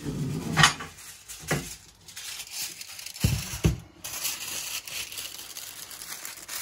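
Aluminium foil being pulled off a large roll, crinkling and crackling, with a few sharp clicks and knocks in the first few seconds.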